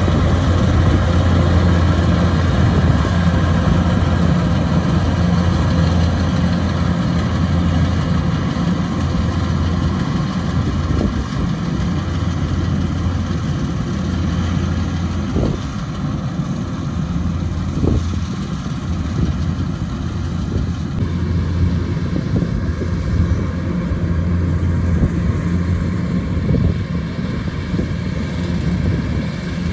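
Kubota DC-105X combine harvester's diesel engine running steadily with a deep, even hum while harvesting rice, its upper sound easing a little about two-thirds of the way through.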